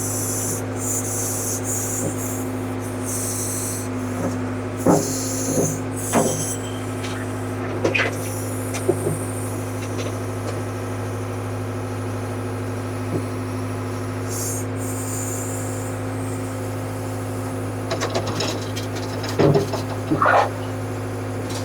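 Ford 555C backhoe's diesel engine idling steadily, with a few sharp metal clanks from work on the bucket pins, including two near the end.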